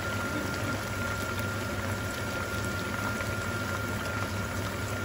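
Pork runner deep-frying in a pan of hot oil, sizzling and bubbling steadily with occasional small crackles.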